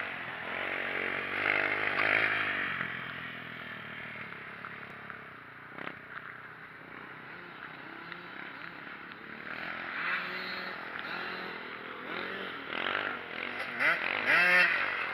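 Dirt bike engine running as it rides around, its pitch rising and falling with the throttle and getting louder near the end with quick revs.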